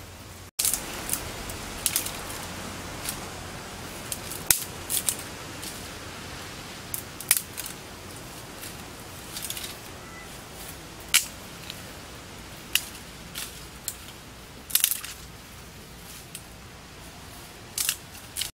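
Scattered sharp clicks and snaps at irregular intervals over a steady background hiss, with a brief dropout just after the start.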